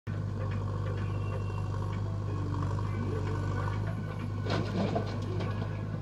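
JCB backhoe loader's diesel engine running steadily while the backhoe arm digs and lifts a bucket of mud, with a brief louder clatter about four and a half seconds in.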